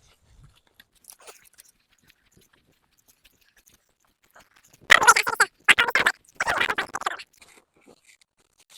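Dry hay being handled, crunching and rustling in three loud bursts about five seconds in.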